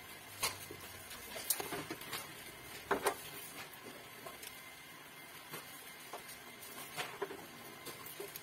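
Scattered light clicks and taps at irregular intervals as hands handle the metal valves, pipes and wiring inside an opened built-in gas hob.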